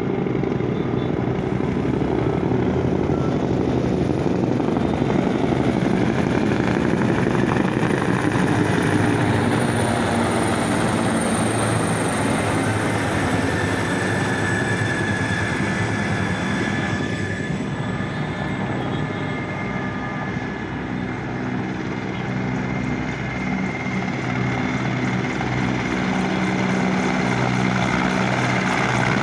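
Military helicopters flying over in formation: the continuous sound of their rotors and turbine engines, dipping a little past the middle and building again near the end as another group comes over.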